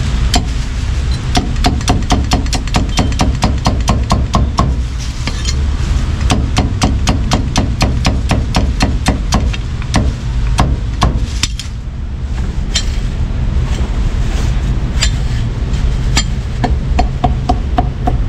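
A heavy cleaver chopping roast pork belly on a thick wooden chopping block: rapid, even chops at about five a second, with a short pause about twelve seconds in. A steady low rumble runs underneath.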